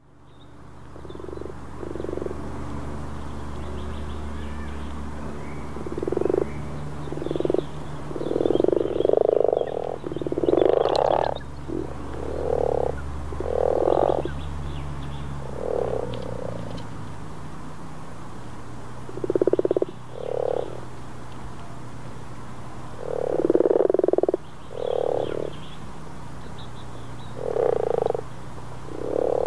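Common frogs (Rana temporaria) croaking in spring: short, low croaks, singly and in quick runs of two or three, coming irregularly every few seconds over a steady low hum. The sound fades in at the start.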